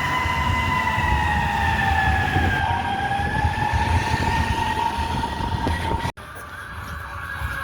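A responding fire apparatus sounds one long, steady, loud warning tone that sags slightly in pitch partway through, over a low engine rumble. It cuts off abruptly about six seconds in, and fainter warning tones follow.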